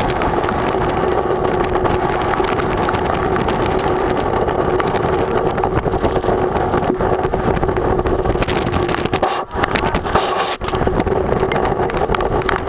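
Tropical-storm wind blowing hard on the microphone: a loud, steady rush with a steady hum under it, easing off briefly twice about three quarters of the way through.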